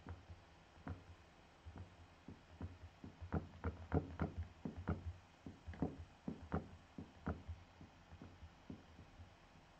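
Faint, irregular light taps and clicks, a few a second, busiest through the middle.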